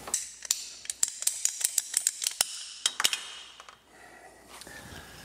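Ratcheting pipe cutter clicking shut in a quick run of sharp clicks, about five or six a second, as it is squeezed through a small CPVC pipe; the clicking stops about three seconds in.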